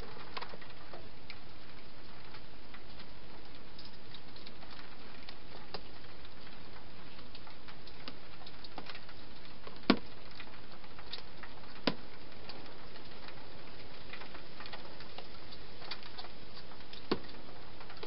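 Wild hedgehog feeding: scattered small clicks of chewing and moving about, with a sharper knock about ten seconds in and two smaller ones later, over a steady hiss.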